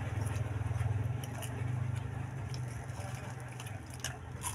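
A low engine hum, strongest at first and fading after about two seconds, with a few short crackles of crunchy snacks being chewed, two of them near the end.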